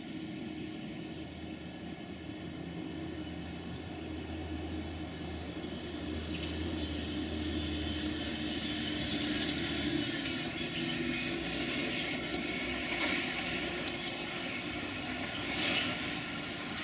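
Siemens Desiro diesel multiple unit standing with its engine idling: a steady low hum, with higher-pitched noise growing louder from about six seconds in.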